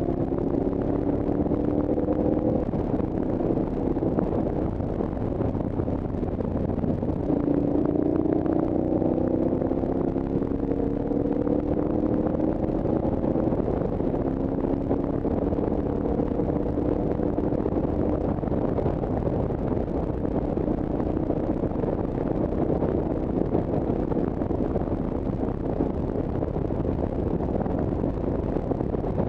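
A vehicle driving along a road: a steady low rush of wind and road noise, with an engine note that climbs in pitch several times in the first half as it accelerates, then sinks into the rush.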